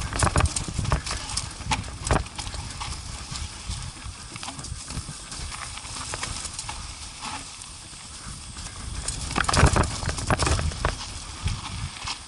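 ATV jolting over a rocky trail: irregular knocks and rattles over a low rumble, with a louder cluster of knocks about three-quarters of the way through.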